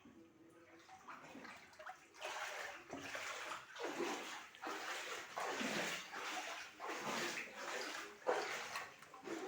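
Floodwater sloshing and splashing, starting about two seconds in and coming in repeated surges roughly a second apart.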